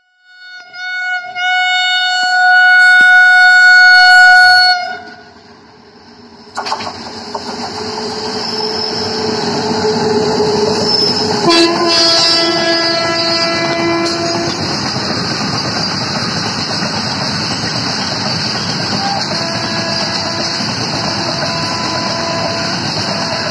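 Indian Railways electric freight locomotive sounding a long, loud multi-tone horn blast for about five seconds. A few seconds later a loaded freight train passes close by, with a shorter horn sound as the WAG9 locomotive goes past, then the steady rumble and clickety-clack of box wagons rolling by.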